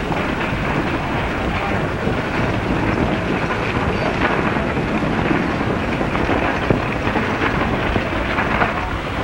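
Horses' hooves clopping and general street bustle, heard as a dense rumbling hiss sprinkled with small knocks, as on an old optical film soundtrack.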